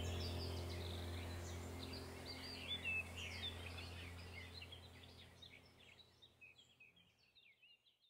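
Many small birds chirping and twittering over a steady low hum. The whole sound fades out gradually to silence near the end.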